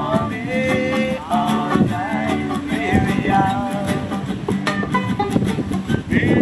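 Mento band playing: banjo and acoustic guitar strummed in a steady rhythm, with a man singing over them.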